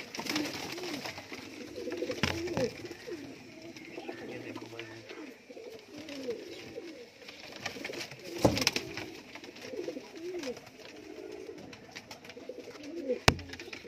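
Several domestic pigeons cooing together, many overlapping coos that rise and fall in pitch. A few sharp knocks cut through, the loudest near the end.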